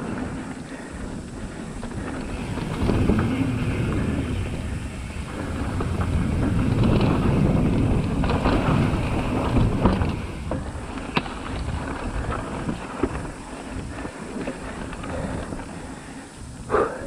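Mountain bike descending a dry dirt and gravel trail: wind rushing over the microphone and tyres rolling on dirt, with sharp knocks and rattles from the bike over bumps, one near the end. The noise swells on the faster stretches.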